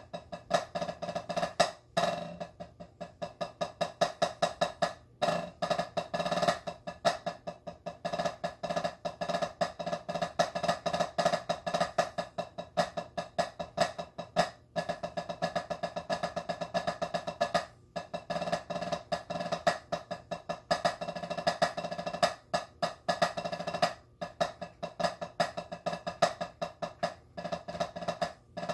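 Wooden drumsticks playing a French-American rudimental snare solo on a practice pad: fast strokes, rolls and accents in dense runs, broken by a few brief pauses.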